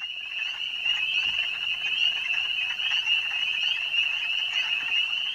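Dense chorus of calling animals, a steady high-pitched trilling made of many overlapping voices.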